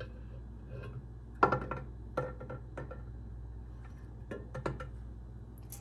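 Metal clinking and tapping: tools and engine parts knocking together in about five sharp strikes, each with a short ring.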